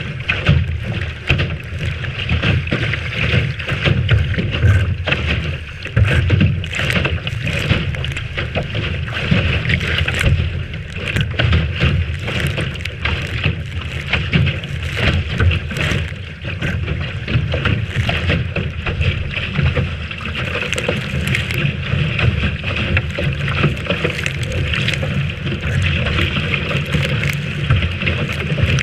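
Wind buffeting the microphone over water rushing and splashing past the hull of a Lightning sailboat sailing in a strong breeze, with a steady hiss and frequent short slaps and crackles.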